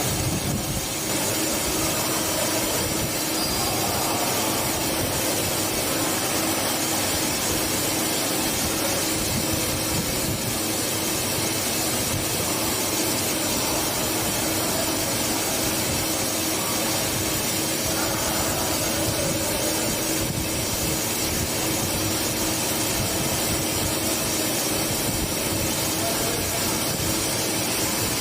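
CNC turn-mill machine running while cutting metal: a steady hiss with a steady hum underneath.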